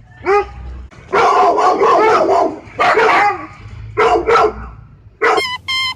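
A dog barking loudly: a short yelp, then a long run of barks, then two more barks. Near the end a horse starts to whinny.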